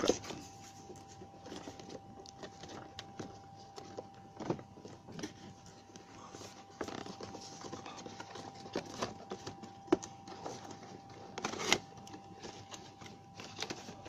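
Cardboard toy-car box being opened and handled: scattered light taps, scrapes and rustles of the packaging, with a couple of sharper knocks near the end, over a faint steady hum.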